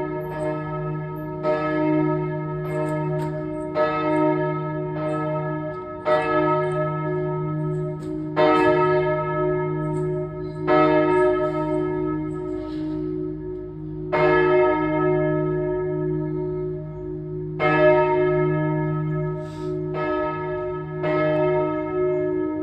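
Church bell ringing, struck again and again at uneven intervals about one to two seconds apart. Each strike sets off a bright clang that fades, while a deep hum rings on between strikes.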